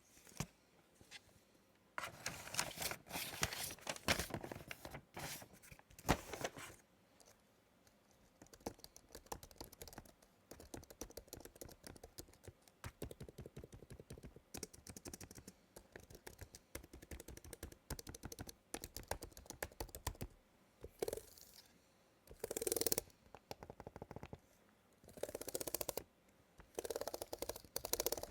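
Typing on an Apple Magic Keyboard with Touch ID: a long, fast run of light key clicks through the middle, with bursts of handling noise near the start and near the end.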